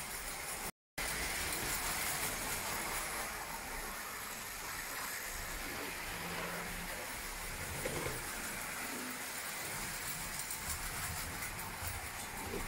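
Tinplate O-gauge toy trains, including a tin Brno tram, running on tinplate track: a steady rattling rumble of wheels and motors on the tin rails. The sound drops out completely for a moment about a second in.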